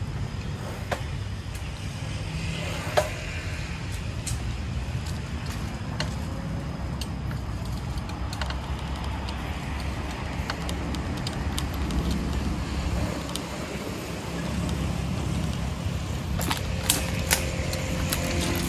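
Outdoor road ambience: a steady low rumble with scattered light clicks and rattles.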